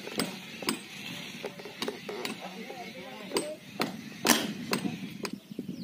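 Sharp knocks about twice a second, with one louder sharp crack about four seconds in: an air rifle fired into a metal pipe, the pellet running through to a balloon at the far end.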